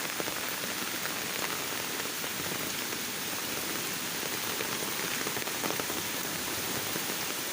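Heavy rain falling steadily, with individual drops ticking close by.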